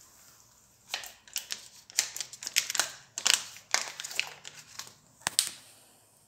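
Cats crunching dry kibble, a run of irregular crisp crunches and clicks in bunches with short pauses between.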